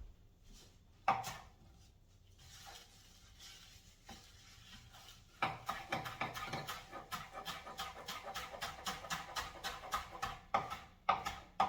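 Chef's knife chopping flat-leaf parsley on a cutting board: a single knock about a second in, then from about halfway a fast, even run of sharp taps, several a second, as the parsley is minced.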